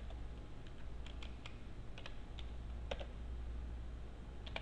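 Computer keyboard being typed on: separate, irregularly spaced keystrokes over a steady low hum.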